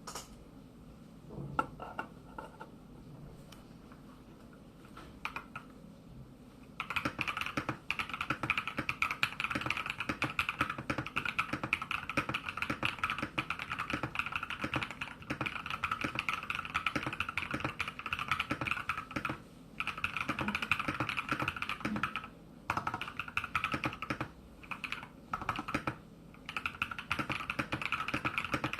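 Typing on an SK68 mechanical keyboard with a brass plate, foam and tape mod, and lubed, filmed GP switches. A few scattered keystrokes at first, then fast, steady typing from about seven seconds in, broken by a few short pauses.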